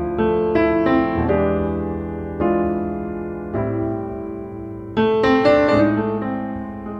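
Background piano music: chords struck every second or so and left to ring out and fade.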